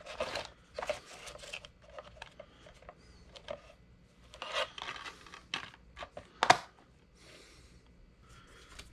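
Plastic Blu-ray keep case and its paper cover sleeve being handled: light rustling and small clicks, then one sharp snap about two-thirds through as the case is shut.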